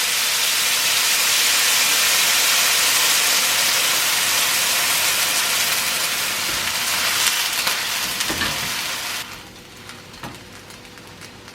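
Chicken stock hitting stir-frying noodles in a hot wok, hissing and sizzling loudly as it boils off in steam, with a few knocks of a utensil against the wok. The hiss cuts off abruptly about nine seconds in, leaving only quieter sounds.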